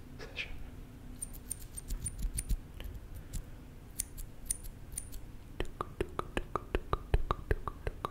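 Small metal scissors snipping close to the microphone: a quick run of sharp clicks, many with a brief high ring. About two-thirds of the way in this gives way to quick mouth clicks right at the microphone, about five a second.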